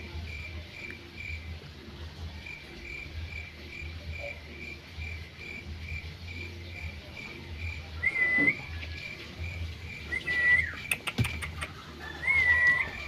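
Insect chirping in a steady, rapid high pulse. In the second half come three short, louder, high whistle-like calls, with a few sharp clicks between the second and third.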